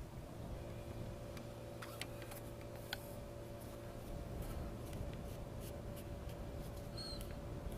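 Scattered light clicks and rustling of a plastic air line and a wire bundle being handled and tucked into place, over a steady faint hum.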